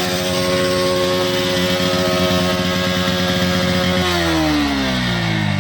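Bajaj Pulsar NS125's single-cylinder engine revved and held at steady high revs through its exhaust for about four seconds, then dropping back toward idle near the end.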